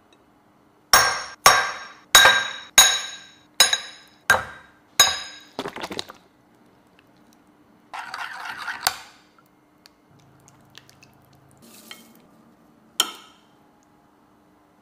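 Utensil clinking against ceramic dishware: a run of about eight sharp, ringing clinks, a little over one a second. Then a metal spoon scrapes briefly through chili oil in a ceramic bowl and ends in a clink, with one more clink near the end.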